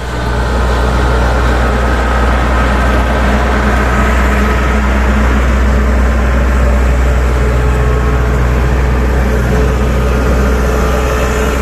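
An engine running steadily and loudly, with a deep hum and a rushing noise over it.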